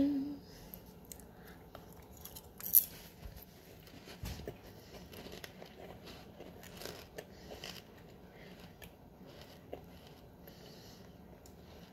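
A sharp crunch about three seconds in as a Thin Mint cookie topped with buttered popcorn is bitten, followed by several seconds of quieter chewing with small crunches and clicks.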